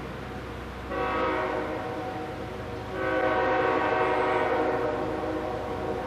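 Approaching diesel freight locomotive sounding its air horn as a chord, twice: a first blast about a second in, then a louder, longer one from about three seconds, over a steady low rumble.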